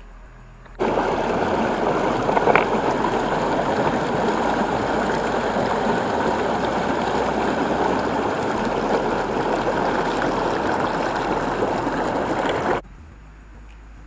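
Steady rush of water running through a dam spillway, cutting in suddenly about a second in and stopping suddenly near the end.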